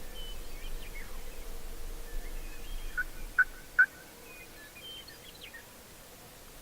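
Distant wild turkey gobbling, a short rattling burst about three seconds in, over small songbirds chirping in the dawn chorus.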